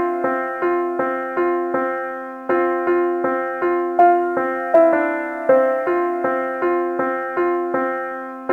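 Piano-like keyboard music: a repeating pattern of single notes played at an even pace, a little under three notes a second, each note fading away before the next is struck.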